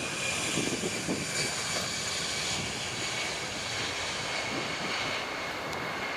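Airbus A320-216's twin CFM56 turbofan engines at takeoff thrust on the takeoff roll: a steady rushing engine noise with a high fan whine that slowly falls in pitch.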